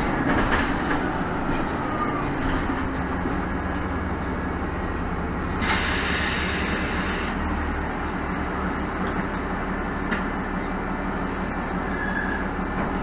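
Inside a 2017 Nova Bus LFS diesel transit bus: the engine runs with a steady low drone, and a burst of air hiss about a second and a half long comes about six seconds in.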